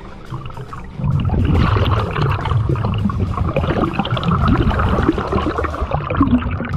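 Water churning and bubbling against an underwater action camera as it rises toward the surface: a dense crackle of bubbles over a low rumble, starting about a second in.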